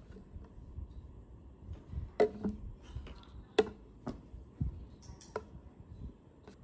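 Empty plastic drink bottle being handled and moved on a wooden table: about half a dozen separate sharp clicks and knocks.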